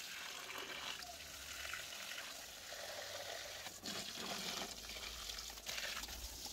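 Faint steady hiss with a few soft clicks.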